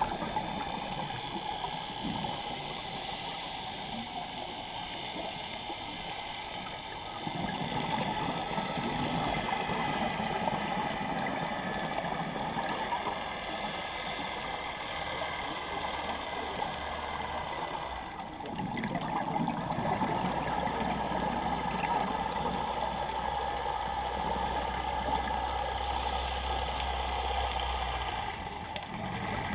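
Water gurgling and rushing over a steady engine hum, the sound changing abruptly several times.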